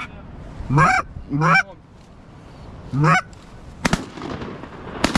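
Three loud goose honks, about one, one and a half and three seconds in, each a short note that rises then breaks downward. They are followed by two sharp cracks, one about four seconds in and one near the end, over a rising rush of wind noise.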